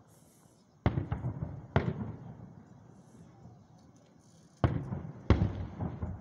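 Aerial fireworks shells bursting: four loud booms, two about a second in and two near the end, each trailing off in a rumbling echo.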